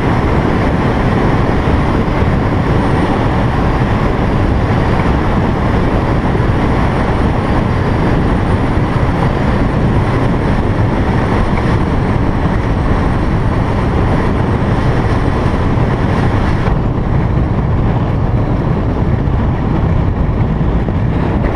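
Strong wind buffeting the microphone: a loud, steady low rumble and rush of air, with the higher hiss dropping away about 17 seconds in.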